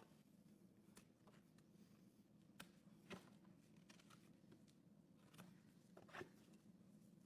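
Near silence: a low steady hum with a handful of short, faint scrapes and clicks, spaced a second or more apart.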